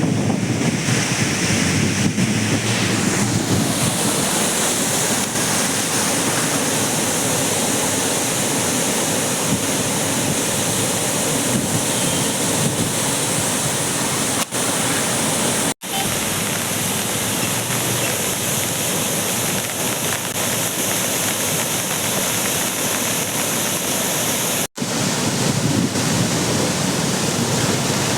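Rain-swollen seasonal stream water rushing and pouring across a road in a steady, loud wash of noise. It cuts out for an instant twice, about halfway through and again near the end.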